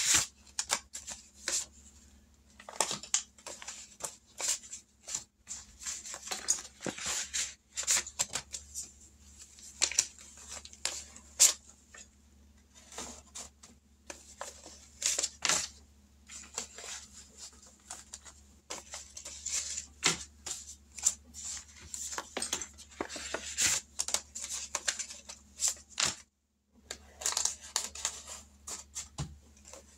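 Paper envelopes and cash being handled and rustled, with many short, crisp rustles and scrapes.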